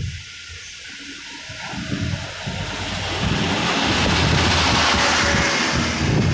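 A goods lorry passing close alongside a moving vehicle: a rush of engine and tyre noise that swells to a peak about four seconds in and falls away near the end, over wind buffeting at an open window.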